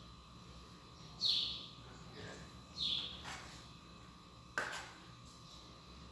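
A bird chirping twice, each a short call falling in pitch, about a second and a half apart. A single sharp click follows about four and a half seconds in, over a faint steady hum.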